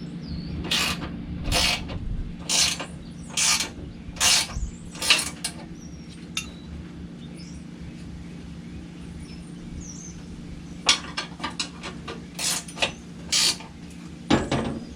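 Ratchet wrench clicking as a nut is tightened: a run of ratcheting strokes about one a second for the first five seconds, a pause, then a quicker run of strokes near the end, over a steady low hum.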